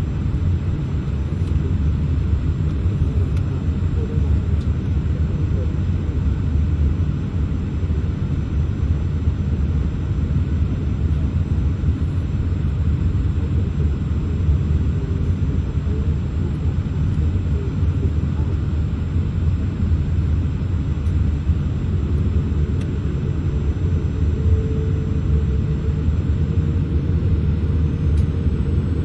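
Steady low rumble inside the cabin of a Boeing 787-8 taxiing, from the engines at taxi power, the air conditioning and the wheels rolling over the taxiway.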